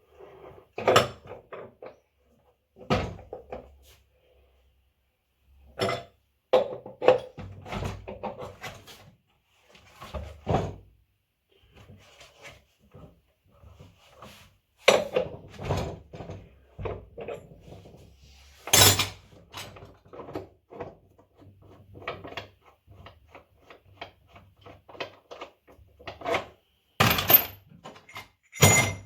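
Irregular knocks, clicks and clatter of tools and washing-machine parts being handled during repair work, with several sharper knocks standing out among lighter rattling.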